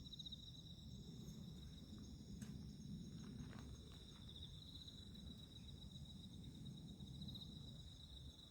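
Faint insects chirping, a steady high-pitched trill that pulses, over a low background rumble.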